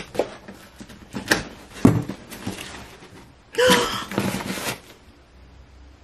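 Cardboard shipping box and its packing tape being pulled open, with a few short sharp rips and knocks in the first two and a half seconds. About three and a half seconds in comes an excited gasp-squeal that lasts about a second.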